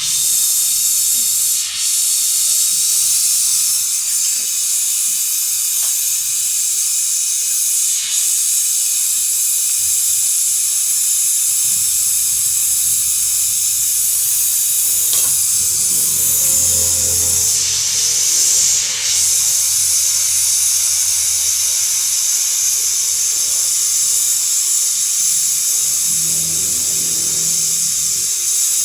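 Steady, loud hiss of pressurised gas rushing out of a line or nozzle while work is done on a refrigeration system; it starts suddenly.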